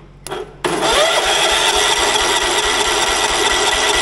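Kohler Magnum 16 engine of a Wheel Horse garden tractor cranking on its electric starter, turned over by jumping the solenoid with a screwdriver. After a short crackle, the starter cranks steadily from just over half a second in, and the engine does not fire because there is no spark.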